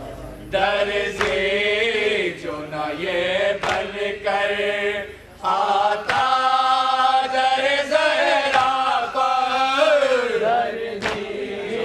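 Group of men chanting a noha, a Shia lament, in unison, the melody rising and falling with a brief pause about five seconds in. A few single chest-beating slaps (matam) sound now and then over the chant.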